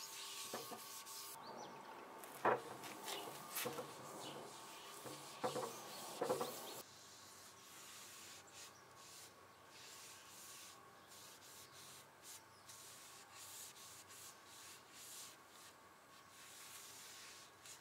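Faint rubbing of an applicator pad wiping Danish oil over a wooden tabletop, with a few light knocks; about seven seconds in it drops to fainter brushing.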